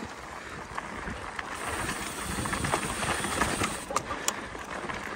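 Mountain bike rolling fast down a dirt trail: a steady rushing noise of tyres on dirt and the bike rattling over the bumps, with two sharp clicks about four seconds in.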